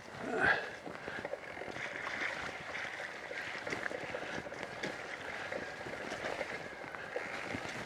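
E-mountain bike rolling along a wet dirt trail: a steady rush of tyre noise with many small crackles, and one brief louder sound about half a second in.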